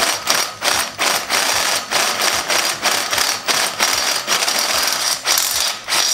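Electric drill boring a hole through a steel motorcycle frame tube, the bit cutting with a rapid, regular chatter of about three to four strokes a second.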